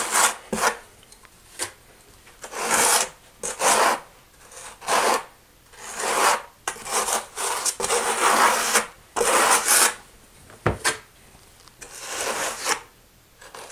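Small steel trowel scraping thinset mortar onto the back wall of a shower niche, about a dozen scraping strokes with short pauses, burning in a thin skim coat. A single sharp knock about ten and a half seconds in.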